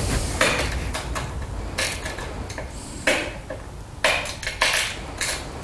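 Pressure flaking of glass on a small wooden anvil: several short, crisp crunching clicks as tiny flakes snap off the edge under the pressure tool while the piece is retouched and thinned.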